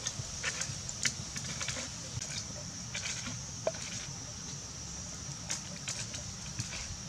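A small charcoal-and-wood cooking fire under fish grilling on a stick rack, with scattered sharp crackles and clicks from the fire and the sticks being handled, over a steady high hiss and a low wind rumble.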